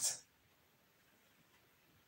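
The last breathy trace of a man's spoken word in the first moment, then near silence: room tone.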